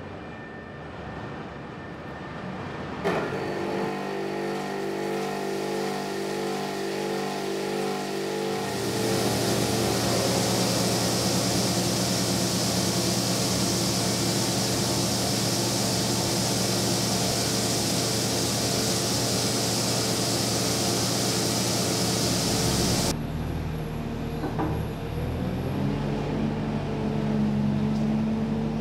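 A Thibaut bridge saw starts with a click about three seconds in, and its motor hums steadily. A few seconds later its diamond blade cuts into a granite slab, adding a loud steady hiss that cuts off suddenly after about fifteen seconds. Near the end a forklift engine runs.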